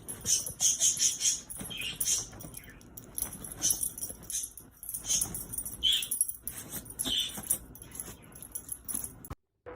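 A dog's collar tags jingling in short, irregular bursts, with a few brief dog sounds among them.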